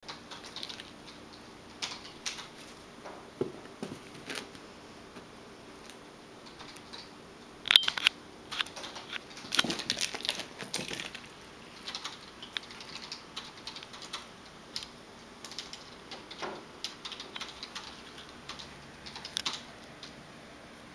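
Kitten playing with a ribbon on carpet: irregular light clicks, taps and rustles, busiest in a cluster around the middle.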